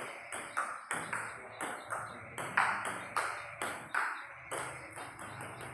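Table tennis rally: a celluloid ball clicks off rubber-faced bats and bounces on the table in an even run of sharp ticks, about two a second.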